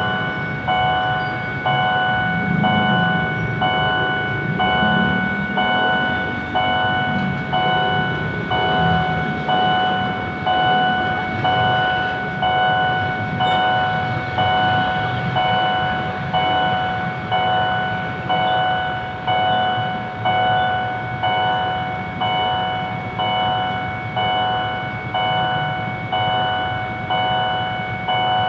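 Railway level-crossing warning bell ringing in an even beat of about one stroke a second, over the low rumble of a passing train.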